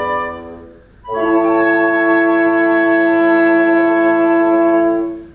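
Wind quintet of flute, oboe, clarinet, horn and bassoon closing a movement: a chord fades away, then after a brief gap a final chord is held steady for about four seconds and released together.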